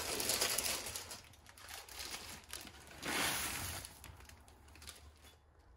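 Dry, crushed instant noodles poured from their plastic packet into a steel pan of water, the packet rustling as the pieces slide out. This happens at the start and again about three seconds in.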